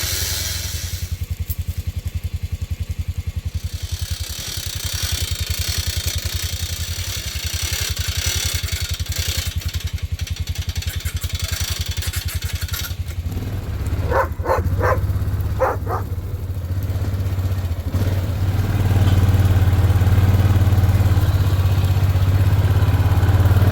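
A vehicle engine running steadily with an even pulse while logs are being moved, with a few short high squeaks in the middle; near the end the engine comes up and runs louder, as under more throttle or load.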